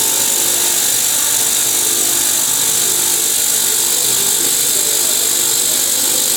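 Amada CNC 100 sawing machine cutting through 4-inch round T304 stainless steel bar: a loud, steady, hissing cutting noise with faint machine tones underneath.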